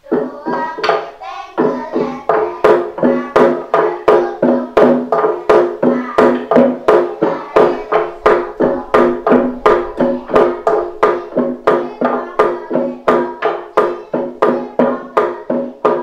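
Gejog lesung: wooden pestles knocking on a wooden rice mortar in a steady beat of about two strokes a second, each knock with a hollow ringing tone.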